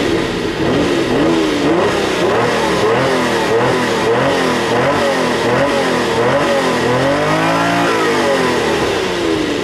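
Supercar 12-cylinder engine revved repeatedly while the car stands still, heard from inside the cabin: quick throttle blips a little under two a second, then one longer, higher rev near the end that falls back. The engine is being warmed up.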